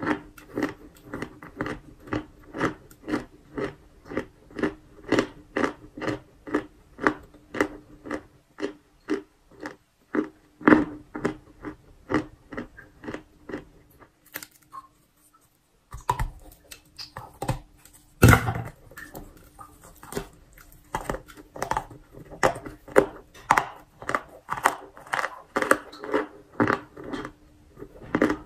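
Close-up crunchy chewing of chalk, about two to three chews a second. The chewing stops for a couple of seconds past the middle, then one loud crunching bite starts it again.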